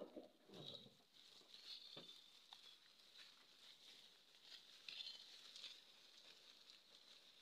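Faint rustling of leafy plants and soil as plants are pulled by hand, with scattered soft crackles.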